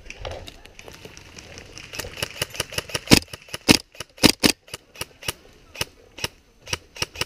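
Airsoft gunfire: a string of about two dozen sharp cracks in irregular succession, starting about two seconds in and loudest in the middle.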